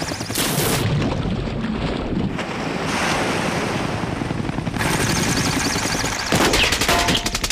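Helicopter hovering low over the sea: a steady rush of rotor downwash and wind over churned water, with fast, even rotor chop coming up strongly about six seconds in.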